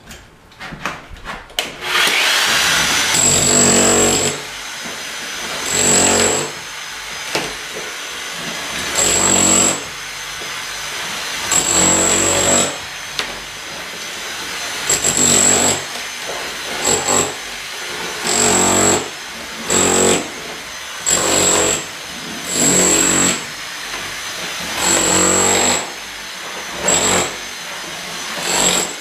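Bosch electric demolition hammer chiselling up ceramic floor tiles, hammering in a dozen or so louder bursts of about a second each.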